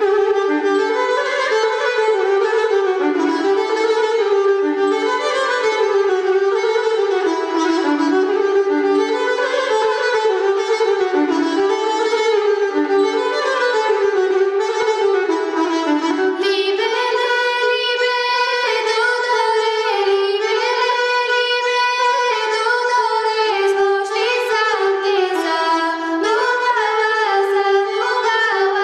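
Instrumental introduction to a Bulgarian folk song, led by a fiddle-like bowed melody. About halfway through, a brighter accompaniment with sharp rhythmic attacks joins in.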